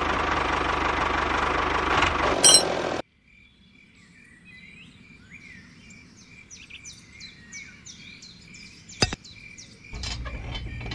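A loud, steady engine-like running noise that cuts off abruptly about three seconds in, followed by birds chirping and a single sharp click near the end.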